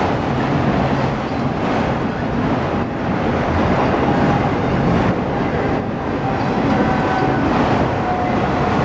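Autorack freight cars rolling past close by: a steady rumble and rattle of steel wheels on rail. A faint thin whine comes in about halfway through and holds to the end.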